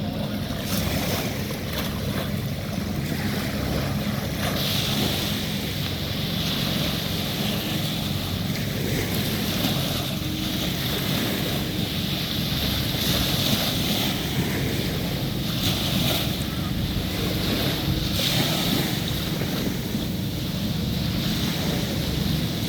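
Surf washing onto the beach, the wash swelling and fading every few seconds, over a steady low rumble of wind on the microphone.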